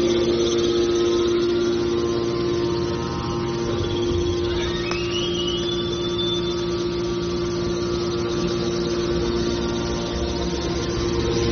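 Hydraulic metal baler running with a steady machine hum, and a whine that rises in pitch about five seconds in.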